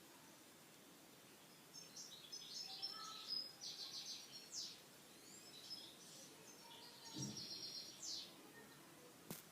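Small birds chirping and singing in quick high trills over a faint steady hiss, with a sharp click near the end.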